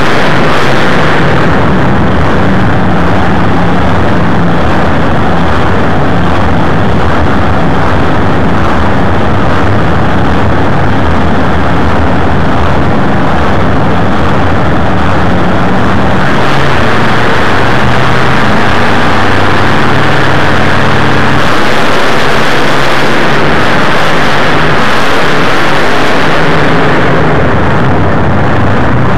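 Monster truck engines with open headers running very loud at the start line, then going to full throttle for the race about halfway through. The recording is overloaded and distorted.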